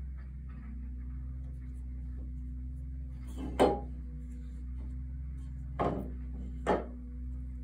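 Three light knocks of hard parts and tools being handled during hand work, over a steady low hum. The loudest knock comes about three and a half seconds in and rings briefly; two smaller ones follow near six and seven seconds.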